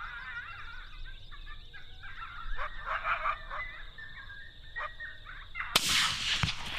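Coyotes yipping and howling in a wavering chorus, then a single rifle shot near the end that cuts sharply across everything.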